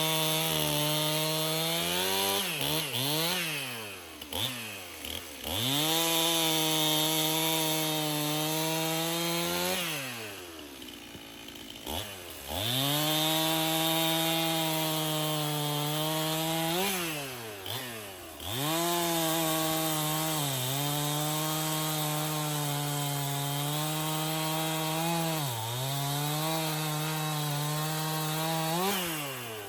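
Chainsaw cutting firewood logs, held at a steady high pitch under throttle. It lets off several times, with the pitch falling away and rising again, once for about two seconds near the middle.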